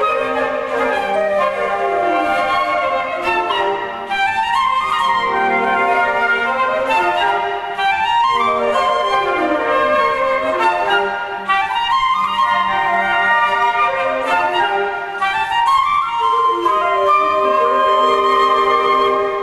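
Flute choir playing an ensemble piece together, many interlocking parts with repeated sweeping scale runs that rise and fall across the group.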